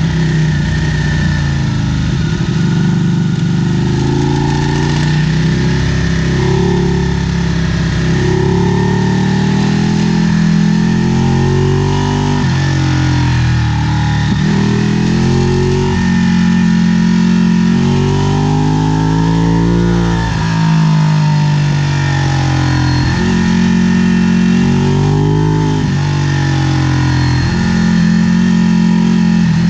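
A motor vehicle's engine running, its pitch climbing steadily and then dropping sharply several times.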